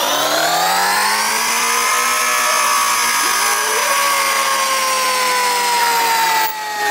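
CNC milling machine running a cut, a whining tone that rises in pitch over the first second or so and then slowly falls. It dips briefly near the end.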